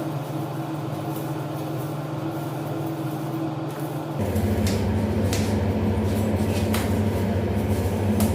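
A steady machine hum that steps up louder and lower in pitch about four seconds in, with a few light clicks over it.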